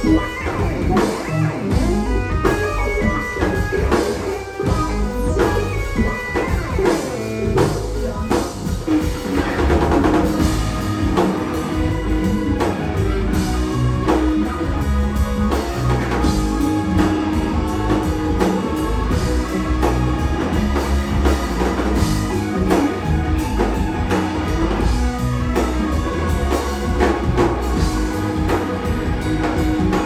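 Live rock band playing an instrumental passage: electric guitar and keyboards over bass and a drum kit, steady and continuous.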